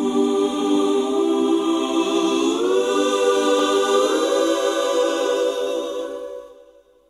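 Music: a held, choir-like chord opening the song. It shifts up in pitch twice and fades out near the end.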